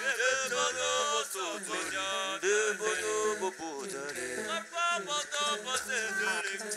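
Live a cappella vocal improvisation by a male voice performer into a handheld microphone: several layered sung and chanted vocal lines with sliding pitches, over a repeating low vocal pulse.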